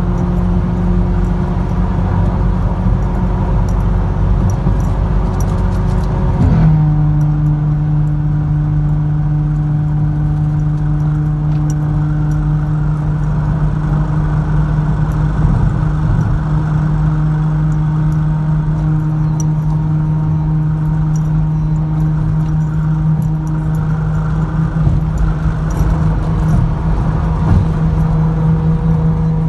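Seat Leon 1.2 TSI's Stage 1-tuned turbocharged four-cylinder petrol engine, heard from inside the cabin at sustained high speed, with a steady drone over road noise. The engine note steps down in pitch once, abruptly, about seven seconds in, then holds steady.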